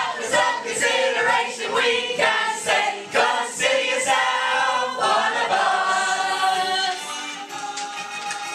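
A chorus of voices singing a lively show tune over a steady beat, closing on one long held final chord.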